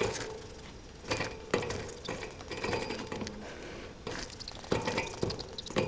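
Irregular sharp clicks, taps and rattles at a hamster's wire cage, over a low rustling.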